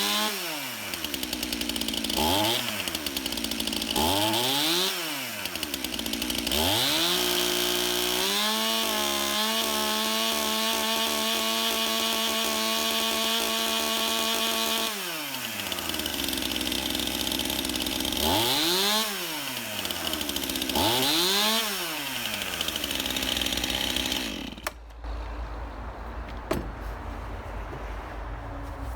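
Stihl Farm Boss two-stroke chainsaw warming up after a cold start. It is blipped from idle to high revs and back three times, held at full throttle for about six seconds, blipped twice more, then shut off near the end.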